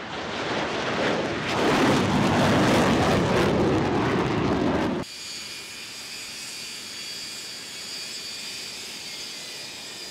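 Loud roar of a formation of fighter jets flying past, which cuts off abruptly about halfway through. It gives way to the steady whine of jet trainers' engines idling on the ground, with several high steady tones over a low rush.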